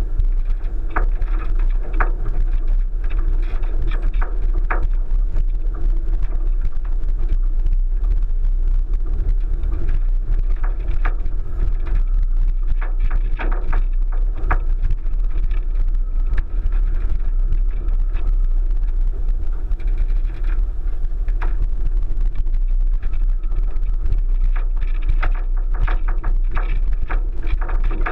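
A 1999 Subaru Forester driving slowly over a rough, rutted dirt track, heard from a camera on its roof: a steady heavy low rumble with frequent short sharp knocks and clatters as the car jolts over the ground, coming in clusters.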